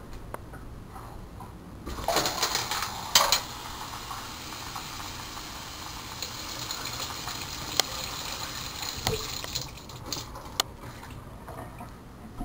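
Kitchen sink tap running into a plastic cup, filling it with water, with a few clattering knocks of the cup and dishes at the sink. The water starts about two seconds in and stops about ten seconds in.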